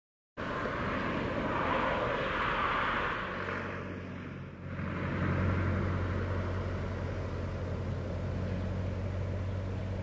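An engine drones with a steady low hum from about three seconds in, over a rushing background noise; the sound drops out briefly at the very start.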